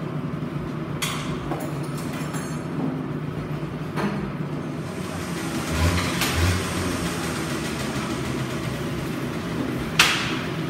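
Motorcycle workshop noise: a steady hum with a few scattered knocks and clinks of tools on metal, the sharpest near the end.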